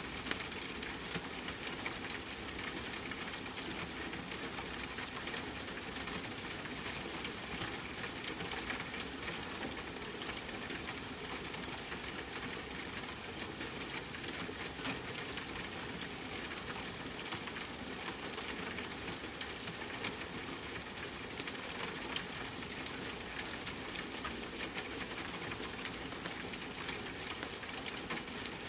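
Steady rain hiss mixed with the dense, small crackles of a wood fire in a fireplace.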